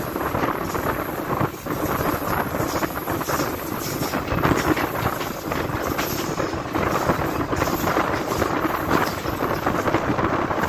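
Passenger train running at speed, heard from an open coach window: a steady rush and rumble of the wheels on the track, with wind on the microphone.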